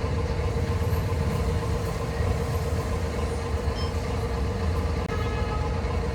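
Remote-control construction truck running: a steady low rumble with a steady whine held at one pitch.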